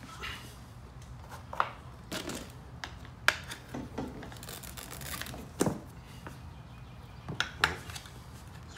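Metal tire spoons clicking and scraping against a spoked dirt-bike wheel rim and the knobby rubber tire as the last section of the bead is levered on, with several sharp clicks and rubbery scrapes over a low steady hum.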